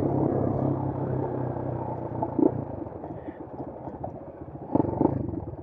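Bashan Brozz 250 dual-sport motorcycle engine running steadily. After about two and a half seconds its drone drops away to a quieter low-rpm run as the bike slows.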